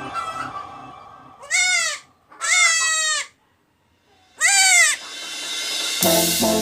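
Goat kid bleating three times in high-pitched, wavering cries. Background music fades out at the start and comes back in near the end.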